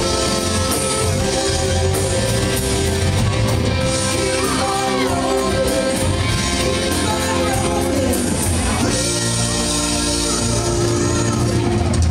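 Live rock band playing loud and steady: a male singer over electric guitars, bass and drums, with the chords changing about two-thirds of the way through.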